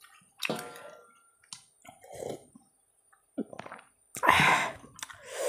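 Close-miked eating sounds from a person eating with her fingers: short chewing and smacking noises, then a louder, longer breathy sound from her open mouth about four seconds in.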